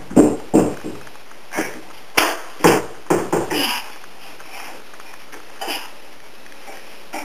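A small child sneezing: a string of short, sharp bursts, most of them close together, then one more after a pause.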